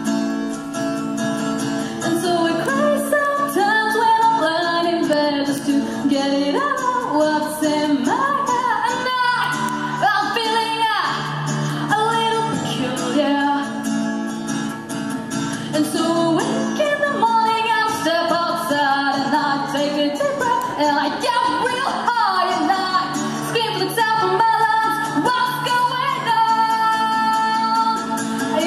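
A woman singing a melody into a microphone, accompanied by an acoustic guitar playing chords.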